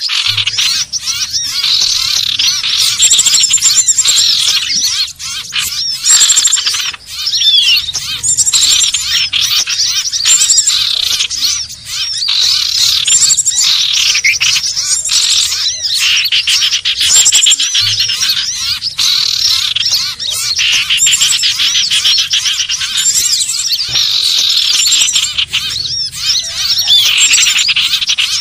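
Common ioras (cipoh/sirtu) calling nonstop in a busy lure recording used to attract the birds. Rapid repeated chirps and high trills run over one another without a break.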